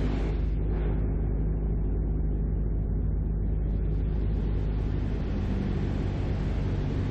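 Cessna 172M's four-cylinder Lycoming engine and propeller running at a steady drone in flight, with a rushing hiss over it that thins out about a second in and returns after a few seconds.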